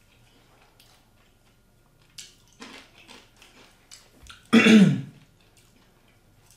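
A man coughs once, loudly, about four and a half seconds in: a short throaty cough that falls in pitch. Before it come a few faint crackles and rustles.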